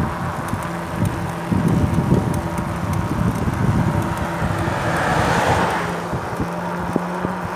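Wind rushing over the microphone of a camera moving along a road, with a steady low engine hum underneath. A brief hiss swells a little after five seconds in.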